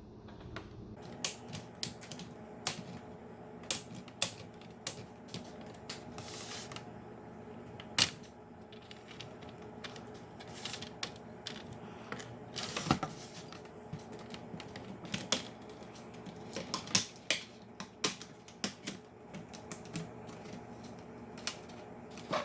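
Plastic retaining tabs of a laptop screen bezel snapping loose as a plastic pry tool works along the seam: irregular sharp clicks and snaps, a few of them much louder, over a faint steady hum.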